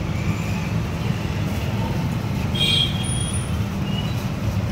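Steady rumble of road traffic going by, with a brief high tone about two and a half seconds in.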